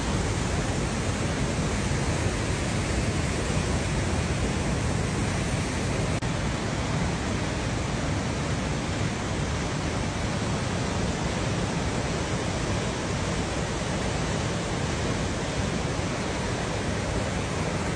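Christine Falls waterfall roaring steadily: an even, unbroken rush of falling water.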